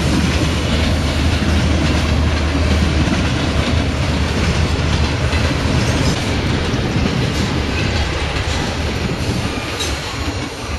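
Freight train of enclosed autorack cars rolling past close by, its steel wheels rumbling and clicking on the rails. The sound fades near the end as the last car goes by.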